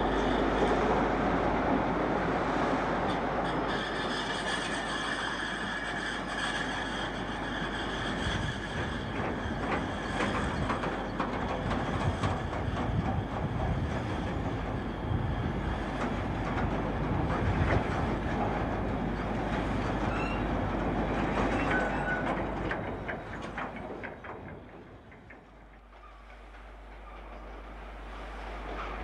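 British Rail Class 47 diesel locomotive passing with a long freight train: engine running, then the steady rumble and clickety-clack of loaded wagons rolling by over the rail joints. About 24 seconds in the noise fades away, and another diesel locomotive, a Class 56, grows louder as it approaches.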